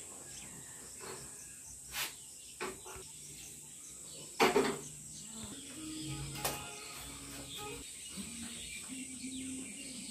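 Quiet kitchen background with a few short clinks and knocks of utensils, the loudest a quick cluster a little before the halfway point. Under them runs a steady high insect drone and faint distant voices.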